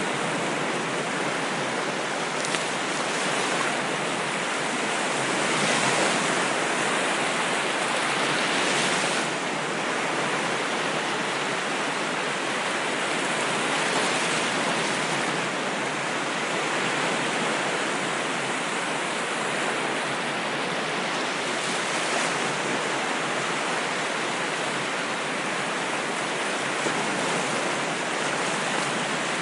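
Ocean waves washing onto a shore: a steady rush of surf that swells louder several times as waves break.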